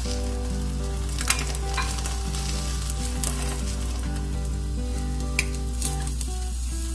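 An egg frying in oil in a nonstick frying pan: a steady sizzle broken by a few sharp spatter pops, the loudest about a second in and again near the end.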